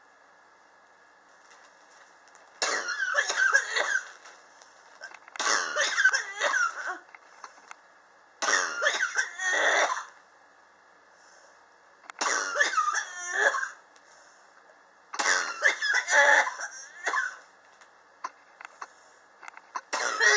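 A person coughing in repeated fits, five bouts of a second or two each a few seconds apart, with another beginning at the very end: a chronic cough that has persisted for years.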